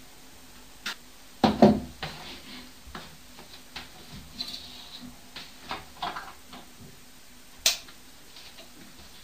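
Irregular knocks and clicks in a flat. The loudest is a heavy knock with a low thud about one and a half seconds in. Small taps follow, then one sharp click near the end.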